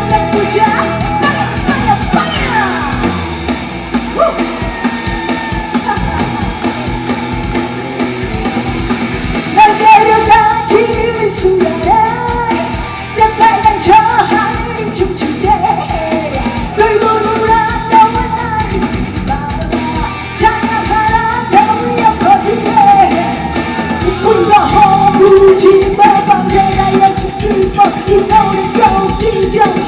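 A live rock band plays loudly with drums while a woman sings in a strong, belting voice. The singing grows more prominent about ten seconds in.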